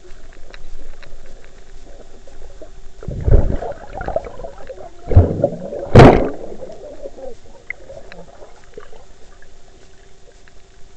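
Water heard from underwater through a camera's waterproof case: a muffled sloshing with faint scattered ticks, and three loud muffled surges of water against the case, about three, five and six seconds in, the last the loudest.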